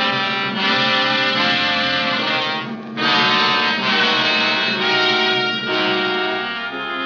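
Dramatic orchestral music cue of a radio drama: full held chords that shift every second or so, dipping briefly about three seconds in, then swelling again and easing off toward the end.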